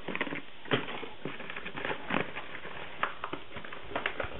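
A bubble-lined paper mailer being handled and pulled open by hand: irregular crinkling and rustling of paper, with many short, sharp crackles.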